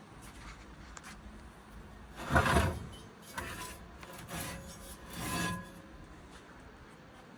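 A few short scraping, rubbing sounds, the loudest about two and a half seconds in and smaller ones between about three and a half and five and a half seconds.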